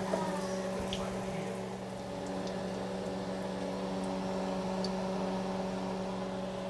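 Fry bread frying in hot oil in a cast-iron skillet, the oil sizzling and bubbling, then the bread is lifted out and oil drips back into the pan. A steady low hum runs underneath.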